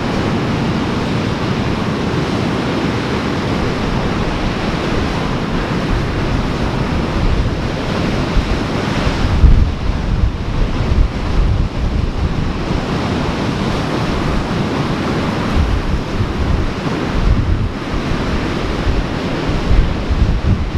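Surf washing steadily, with wind buffeting the microphone in low gusts from about halfway through.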